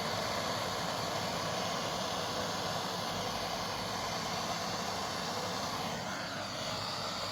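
Handheld gas blowtorch flame burning with a steady hiss, heating a copper pipe elbow joint so the solder will melt and flow into it.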